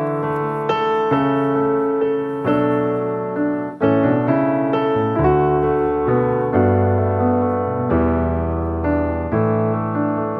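Background piano music: chords and melody notes struck every second or so at a steady level.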